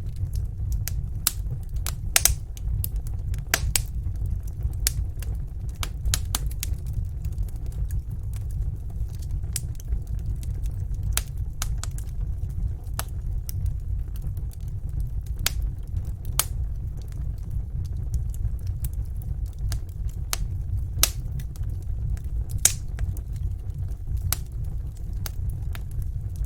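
Wood fire crackling in a fireplace: irregular sharp pops and snaps over a steady low rumble, a few louder pops standing out.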